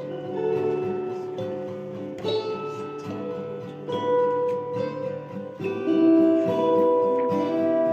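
Guitar playing plucked notes that ring on and overlap, growing louder about six seconds in.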